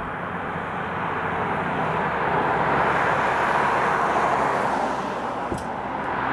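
Road traffic: a passing vehicle's noise swells to a peak about three to four seconds in, then fades. A short click comes about five and a half seconds in.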